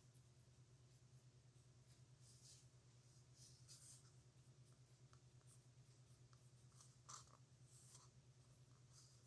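Faint scratching of a dip pen's metal nib on paper in short strokes, over a steady low hum.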